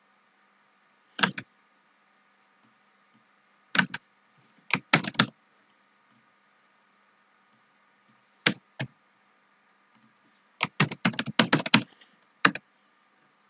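Computer keyboard being typed in short irregular bursts of key clicks, with a quick run of keystrokes about eleven seconds in as a word is typed.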